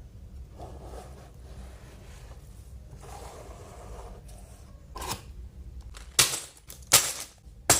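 Small plastic building bricks being handled, with soft rustling and scraping, then four sharp clicks of pieces knocking or snapping together in the last three seconds.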